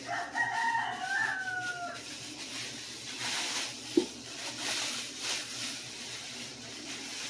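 A rooster crows once, a call of about two seconds that ends on a falling note. Then clear plastic wrapping crinkles as it is pulled off, with one sharp knock about four seconds in.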